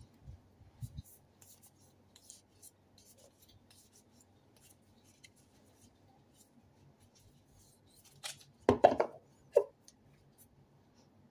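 Round tarot cards being handled: faint ticks and rustles as the cards slide and flick against each other while they are fanned through, then a short cluster of louder knocks and rubs about eight and a half seconds in as the stack is gathered together.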